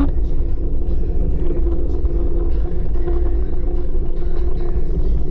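Wind buffeting the action-camera microphone with tyre rumble from a Kaabo Wolf King GT electric scooter cruising at speed, its dual hub motors giving a steady whine.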